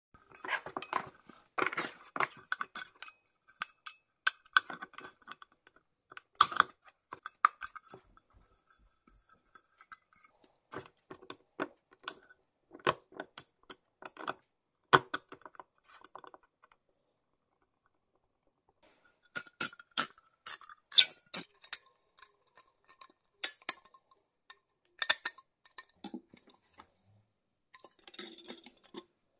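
Clinks, taps and scrapes of an empty metal coffee tin and its lid being handled, with an awl scratching and punching holes in the tin's side. The sounds come in scattered bursts with a few sharp knocks and a short pause a little past the middle.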